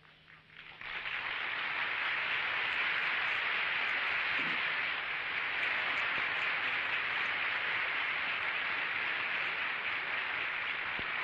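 Hall full of delegates applauding: a steady wash of clapping that swells in about a second in and holds evenly.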